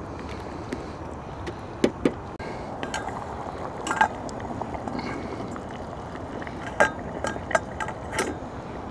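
A few light clinks and knocks of camp cooking gear being handled, scattered over a steady background hiss.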